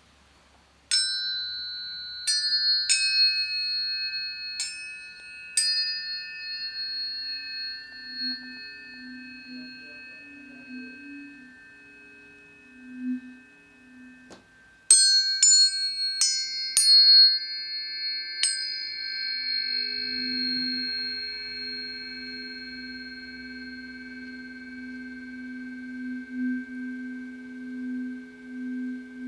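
Planetary tuning forks struck one after another, five strikes in the first six seconds and five more from about fifteen seconds in, their clear high tones ringing on together and slowly fading. A lower steady hum sounds underneath in the middle and latter part.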